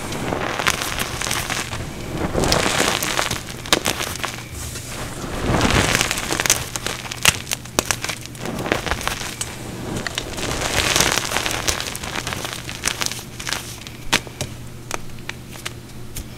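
Dry green powder with small crumbly lumps crunching and crackling as fingers rake through and squeeze it, in irregular swells of gritty rustling with sharp little crackles scattered throughout.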